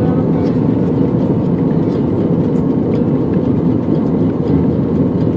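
Steady engine and airflow noise inside a jet airliner's cabin in flight, a loud even rush with no distinct tones.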